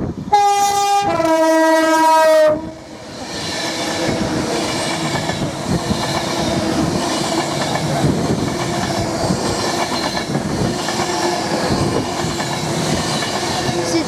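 Class 390 Pendolino electric train sounding its two-tone horn, a short high note then a longer low note, then running past at speed with a loud, steady rushing noise and a low hum.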